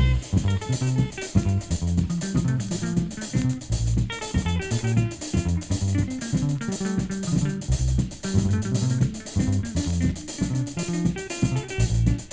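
Instrumental break of a Caribbean funk band: electric guitar playing a melody over bass guitar and drum kit, without vocals.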